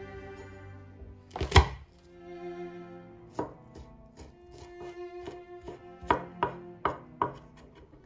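Chef's knife on a wooden cutting board as garlic cloves are crushed and minced: one loud knock about a second and a half in, then a few sharp chopping strokes, bunched together near the end. Soft string music plays underneath.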